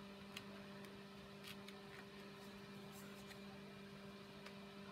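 Near silence over a steady low hum, with a few faint scratches and clicks from a craft knife cutting chipboard and the chipboard being handled.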